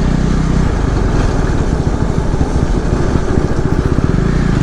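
Motorcycle engine running while being ridden. Its note turns choppy and pulsing for a few seconds in the middle, then settles back to a steady run.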